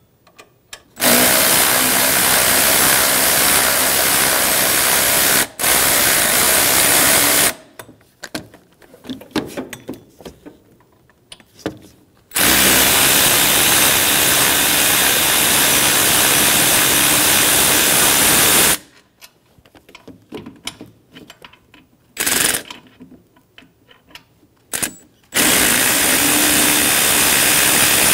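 Power tool turning a 14 mm socket on an extension, spinning out engine-mount bolts. It runs steadily in three long stretches of about six seconds each, with a brief burst before the last, and light clicking and rattling of the socket in the gaps.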